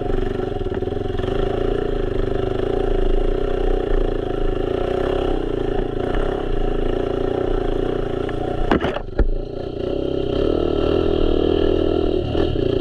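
Dirt bike engine running under load as it climbs a rough trail. A couple of sharp knocks come a little under nine seconds in, then a brief dip before the engine picks up again.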